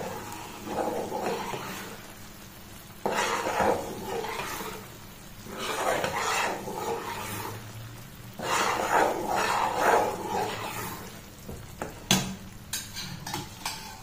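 A steel ladle stirring a bubbling, sizzling Mysore pak mixture of gram flour and sugar syrup in a non-stick pan over a low flame, in four long scraping sweeps. Near the end come a few short sharp taps of the ladle on the pan.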